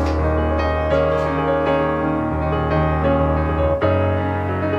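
Background piano music, with the chords changing every second or two.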